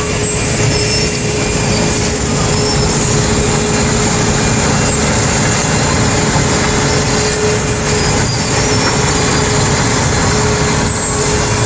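Heavy diesel road-work machinery running steadily, a low engine rumble under a constant high whine.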